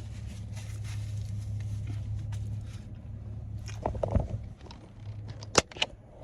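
A person chewing and eating food, with a few sharp clicks near the end over a steady low hum.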